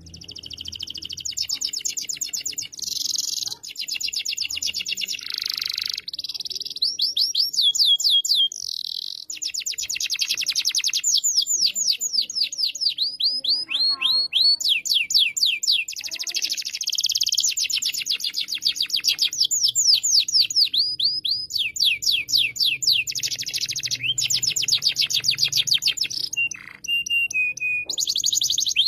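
Domestic canary singing a long continuous song of fast rolls and trills: rapid runs of repeated high sweeping notes, switching to a new roll every second or two. A few short breaks, and a short falling whistled note near the end.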